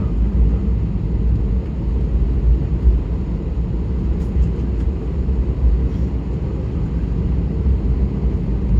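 Steady low rumble of an Airbus A320neo's engines and airflow heard inside the passenger cabin.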